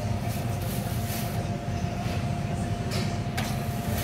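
Steady low machine hum with a thin, constant whine above it, and a single sharp click about three and a half seconds in.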